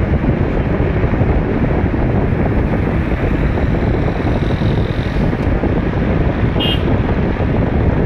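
Wind buffeting the microphone through an open car window, over the steady rumble of the car's tyres and engine as it drives along at road speed. A short high-pitched beep comes near the end.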